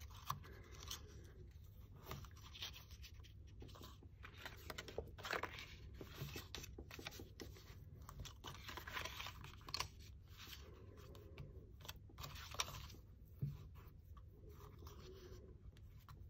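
Cardstock being folded along its score lines and creased with a bone folder: faint scraping and rubbing of the folder and hands on the paper, with soft paper crinkles and a few light taps.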